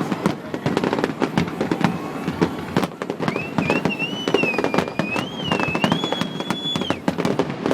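Fireworks crackling and popping in a rapid, dense stream. A high, wavering whistle sounds over the crackle from about three seconds in and stops about a second before the end.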